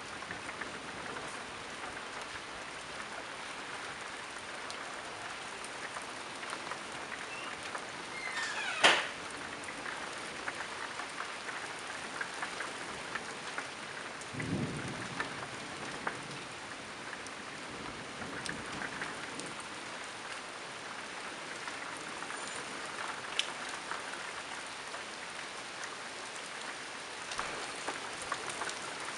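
Steady rain falling during a thunderstorm, with one sharp, loud crack of thunder about nine seconds in and a brief low rumble of thunder a few seconds later.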